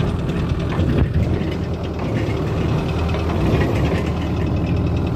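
Furukawa mini excavator's diesel engine idling steadily.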